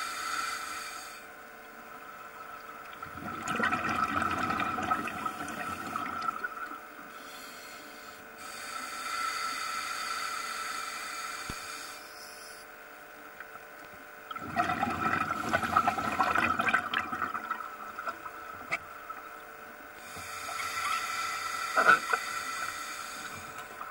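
Scuba regulator breathing underwater: bubbling rushes of exhaled air, two loud ones about three and fourteen seconds in, with quieter hissing stretches between them.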